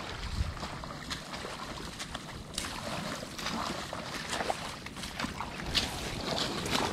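Waders sloshing and splashing step by step through shallow river water, in irregular splashes, with wind rumbling on the microphone.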